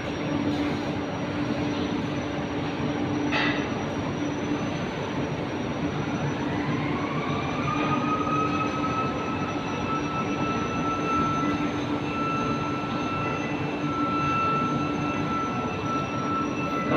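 Steady industrial machinery noise, with a short sharp noise about three seconds in and a motor-like whine that rises about six seconds in and then holds a steady pitch.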